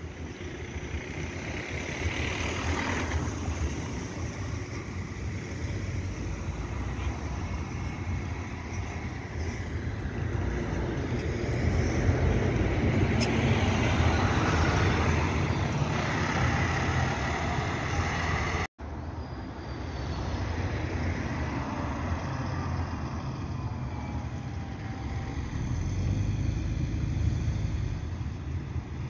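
City buses driving past close by, their engines and tyres swelling and fading; the loudest, closest pass comes about halfway through. A sudden cut follows, then an articulated bus approaching through a roundabout.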